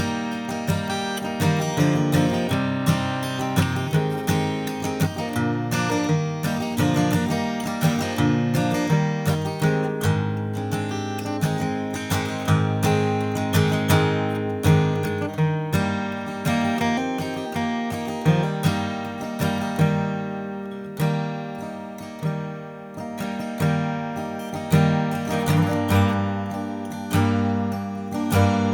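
Martin Custom Shop Style 18 acoustic guitar with an all flamed mahogany body, played solo with strummed chords and picked notes ringing in a steady run of attacks.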